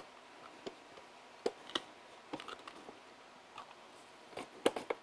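Hand-held mandoline slicer cutting potatoes: a few short, irregular scraping clicks as the potato is pushed across the blade, with a quick cluster of strokes near the end.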